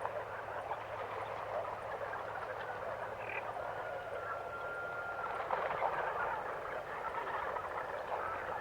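Frogs croaking in a dense, unbroken chorus. A thin steady tone sounds for about two seconds midway.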